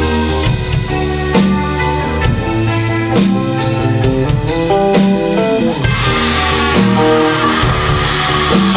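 Garage-rock band playing an instrumental passage: guitar and bass over a drum kit with a steady beat. About six seconds in the sound swells and grows brighter.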